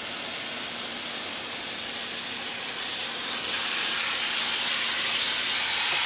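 Water spray from a wand hissing against the fins of a side-by-side's radiator as the cleaner is rinsed off, growing louder about three seconds in.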